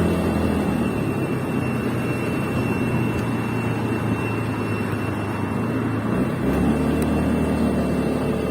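Suzuki Swish scooter's engine running, with a thin, steady high-pitched whine over it. The engine note shifts slightly about six and a half seconds in.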